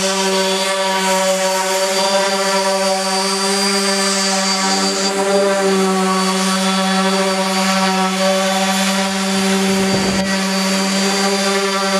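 Electric random orbital sander running steadily as it sands a wooden countertop, a constant pitched hum with no change in speed.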